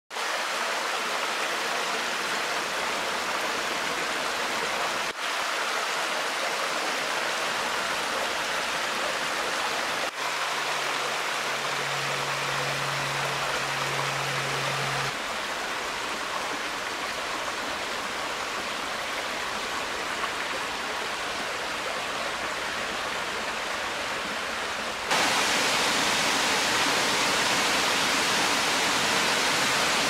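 A small woodland brook running over rocks and small cascades: a steady rush of water that changes in tone at several cuts. Over the last few seconds it is louder and brighter, the splash of a taller waterfall.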